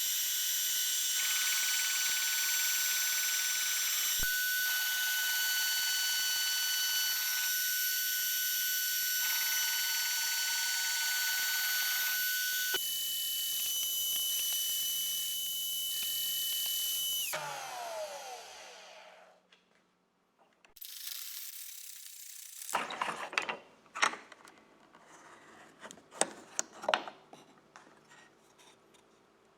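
Makita router on a homemade plywood milling machine running with a high whine whose pitch shifts in steps every few seconds. About 17 seconds in it is switched off and winds down to silence. After that come a short rush of noise and a run of sharp knocks and clicks.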